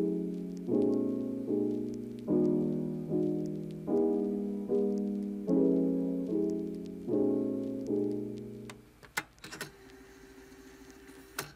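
Background piano music playing slow, evenly spaced chords that stop about nine seconds in. A few sharp clicks follow in the quieter stretch after.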